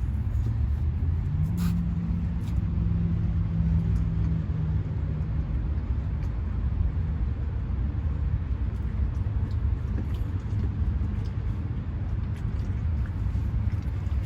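Steady low engine rumble, with a low steady hum that comes in about a second in and fades out about seven seconds in.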